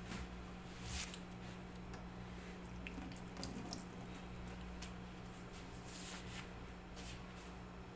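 Faint kitchen background: a steady low hum with scattered small clicks and knocks.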